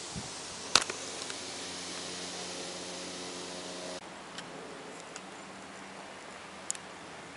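Light single-engine Cessna propeller plane overhead, a steady engine drone. A sharp click comes about a second in, and the drone drops abruptly to a fainter hum about four seconds in, with another click near the end.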